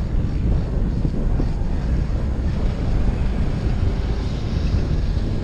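Strong wind buffeting the microphone: a steady low rumbling roar.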